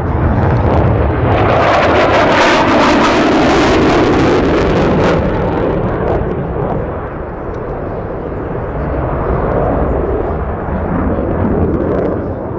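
Jet aircraft flying past, loudest from about one to five seconds in, then easing into a lower, fading rumble.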